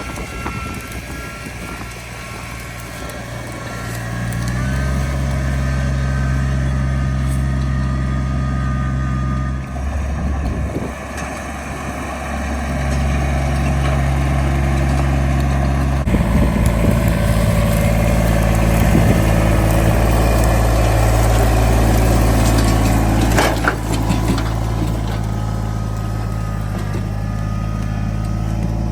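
Engine of heavy outdoor equipment running, its note stepping up and dropping back several times as the load changes, with a sharp crack about two-thirds of the way through.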